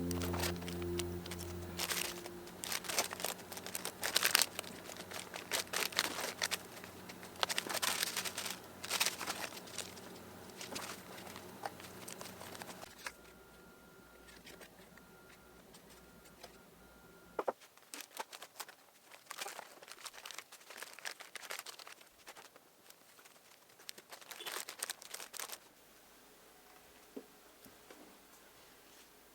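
Plastic or paper packaging crinkling and rustling as a parcel is handled and unwrapped, in two long stretches of busy crackling with a lull between them. The last of some background music fades out at the start.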